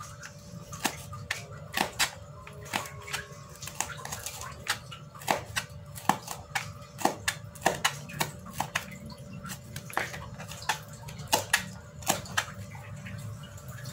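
Kitchen knife slicing curly red chillies on a plastic cutting board: irregular sharp taps of the blade against the board, one or two a second, over a faint steady hum.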